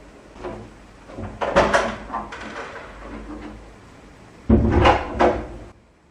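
Several knocks and bangs: a few around a second and a half in, and a louder group of three about four and a half to five and a half seconds in.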